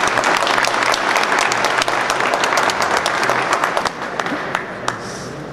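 Audience applauding in a large hall, a dense clapping that thins out after about four seconds to a few last scattered claps.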